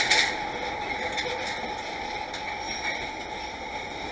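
Steady outdoor rail-yard background noise, with a sharp click at the very start and a few faint ticks after it.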